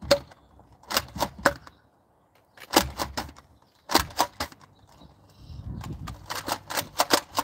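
Sharp plastic clicks and clacks from Nerf blasters and darts, coming in short clusters of two to four, then in a faster run near the end.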